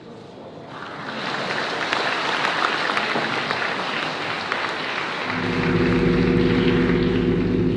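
An audience applauding in a hall, the clapping swelling about a second in. About five seconds in, music with held, steady low notes starts under the applause.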